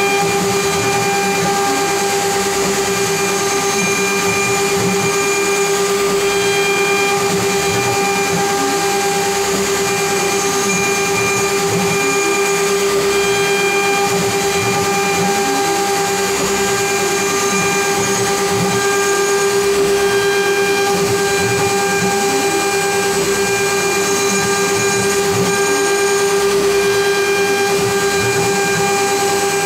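CNC router spindle running steadily with a high-pitched whine while a two-flute ball end mill carves a contoured relief in wood, over an even hiss. Fainter tones glide up and down beneath it as the machine's axes move.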